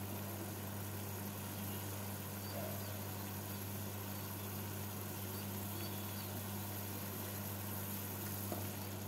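Sugar syrup boiling steadily in an aluminium kadai, giving a soft, even bubbling hiss over a steady low hum.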